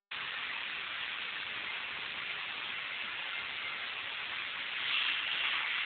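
Steady rushing noise with no distinct events, growing a little louder about five seconds in.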